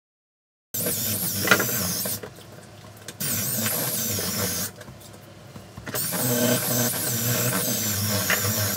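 Power drill running in three bursts, the first two about a second and a half each, the third longer, with a wavering whine as its speed changes.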